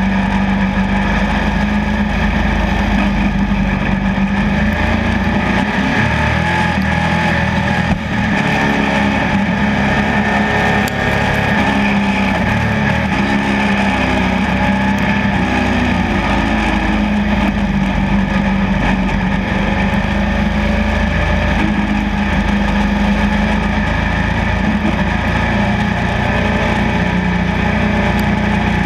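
Pro stock dirt-track race car's engine heard from an onboard camera, running loud at racing speed. Its revs rise and fall repeatedly.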